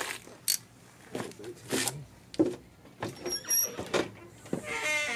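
Metal clicking and clattering of tools and engine parts being handled, with a brief high metallic ring in the middle and a buzzy squeak starting near the end.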